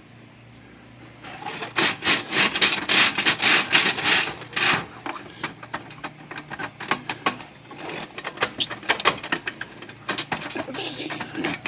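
A stiff brush scrubbing plastic typewriter key tops with denatured alcohol to strip off a white crusty coating. It starts with a dense run of fast strokes about a second in, lasting a few seconds, then continues in slower, scattered strokes.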